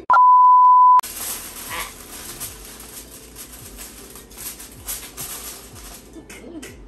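A loud, steady beep lasting about a second, then aluminium foil crinkling and crackling as it is pressed down over a baking dish.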